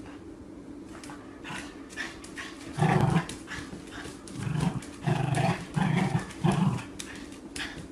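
Small dog chasing its tail, giving about five short vocal bursts in quick succession from about three seconds in.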